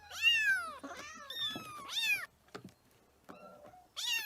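Kitten mewing several times: high-pitched calls that rise and fall, with a short pause after the third.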